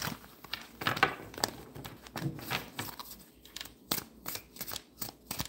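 Tarot cards being shuffled by hand: a run of quick, irregular snaps and clicks as the cards slide and strike each other.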